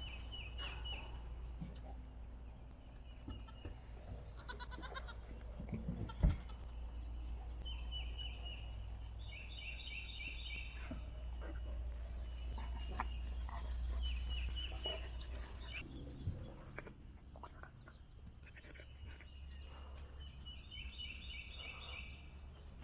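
Two-week-old Cane Corso puppies crying in several bouts of short, rapid, high-pitched squeaks. A single thump comes about six seconds in.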